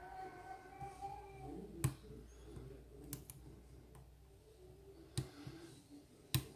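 About five scattered sharp clicks from a lock pick and tension wrench working the pins of a pin-tumbler lock as it is being picked; the loudest click comes near the end.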